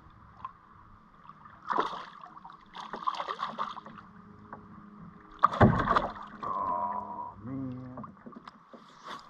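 Hooked fish thrashing and splashing at the surface beside a kayak in several bursts, the loudest a heavy splash about halfway through. Near the end a short wordless vocal sound from the angler.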